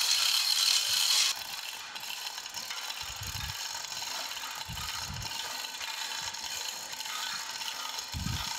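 Manual chain hoist on a gantry crane being hauled up by its hand chain, the chain rattling through the hoist with ratcheting clicks as it lifts a heavy cast-iron forge. Louder for about the first second, then steadier and quieter, with a few low dull bumps.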